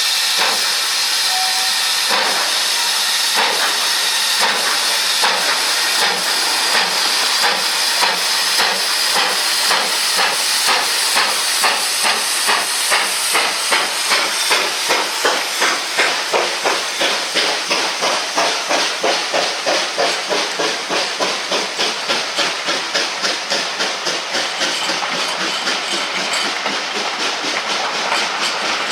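Steam locomotive getting under way: a steady hiss of steam under regular exhaust chuffs that grow quicker and stronger as it pulls away.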